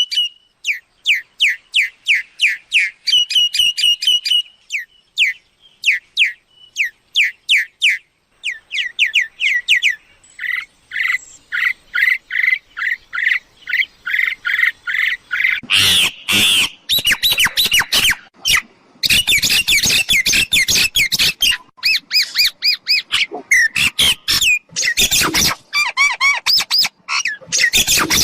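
Myna calling as a decoy lure: fast runs of repeated whistled and chattering notes, turning to loud, harsh squawking chatter a little past halfway.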